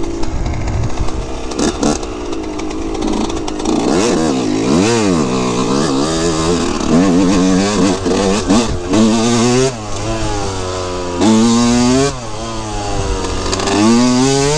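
2003 Yamaha YZ125 single-cylinder two-stroke engine revving as the bike is ridden on a motocross track. Its pitch rises and falls again and again with the throttle, held high for about a second around eleven seconds in.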